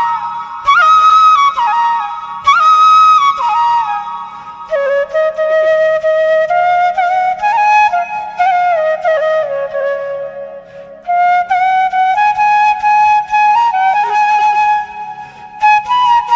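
Background music: a flute playing a slow melody in phrases that step up and down, over a faint low accompaniment.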